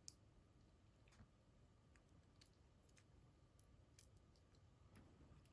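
Near silence with faint, scattered small clicks of metal lock pins and springs being handled and taken out of a pin-tumbler lock core.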